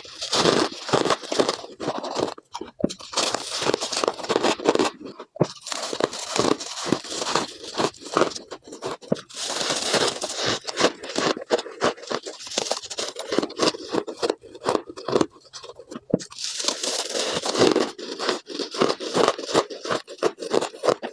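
Ice being bitten and chewed close to the microphone at double speed: a dense, continuous run of crunches and scraping crackles.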